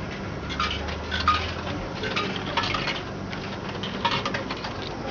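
Coins clinking as they are fed into a coin-operated ramen vending machine, several short metallic clinks and clicks a fraction of a second to a second apart.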